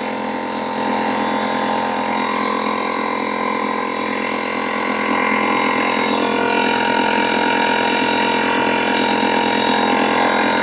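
Air compressor running steadily with a constant motor hum, supplying the compressed air used to blow seized brake caliper pistons out of their bores. It gets a little louder about halfway through.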